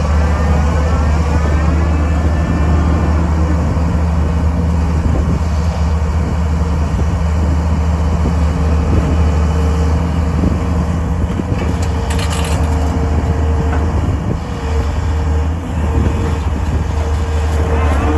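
Diesel engine and hydraulics of a PBD drain-installation rig running steadily with a deep hum. A whine falls in pitch over the first couple of seconds and rises again near the end, and there is a brief hiss about twelve seconds in.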